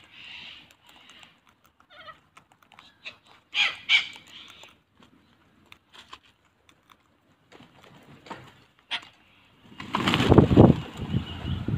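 A feeding flock of sulphur-crested cockatoos and little corellas, with a few short screechy calls and scattered small clicks. About ten seconds in, the flock takes off all at once in a loud rush of flapping wings close by.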